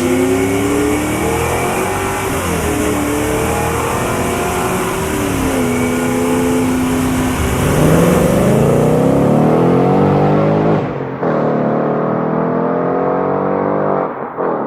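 Car engine revving and accelerating, its pitch climbing and then dropping back as it shifts gear, twice in the second half.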